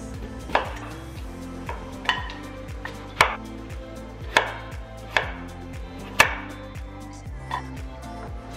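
Chef's knife chopping peeled sweet potatoes on a wooden cutting board: about eight sharp, irregularly spaced knocks of the blade through into the board. Soft background music plays underneath.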